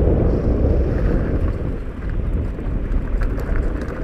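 Wind buffeting the microphone, with tyres rumbling and rattling over a rough gravel trail as a mountain bike descends fast.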